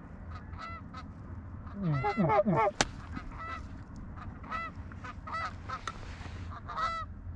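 Geese honking and clucking in short, repeated calls, with a louder, closer run of honks about two seconds in and a single sharp click just after.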